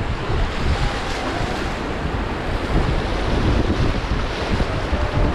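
Rushing river water from a raft, with wind buffeting the microphone in low gusts.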